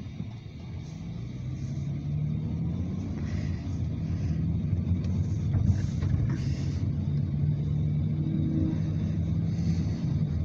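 Car engine and road noise heard from inside the cabin, a low rumble with a faint hum that grows louder over the first couple of seconds as the car picks up speed, then holds steady.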